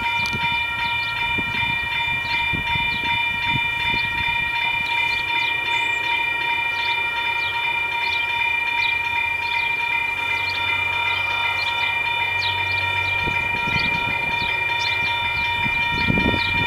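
Level crossing warning bell ringing steadily, struck about twice a second, while the crossing's red lights flash for an approaching train. A low rumble rises near the end.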